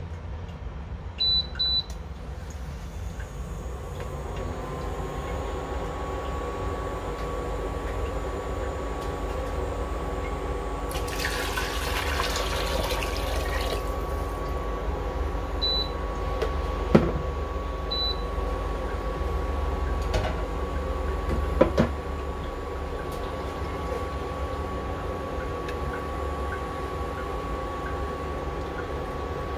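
Induction cooktop beeping as its controls are pressed, then running with a steady electrical whine and fan hum. About eleven seconds in, water is poured into the pot for about three seconds, and later there are two sharp knocks.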